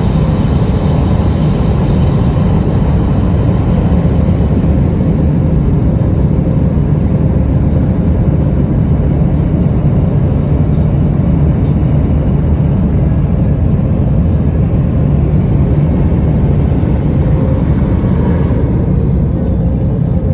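Automatic car wash dryer blowers running, a loud steady rush of air heard from inside the car.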